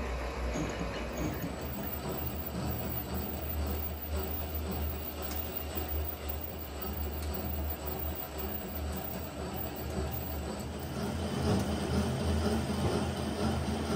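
Engine lathe running with a steady low hum while turning the shank of a cast crane hook; it gets a little louder about eleven seconds in.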